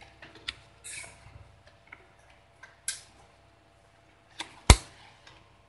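Cardboard shaver box and its insert being handled: scattered rustles, taps and clicks, with a sharp knock near the end.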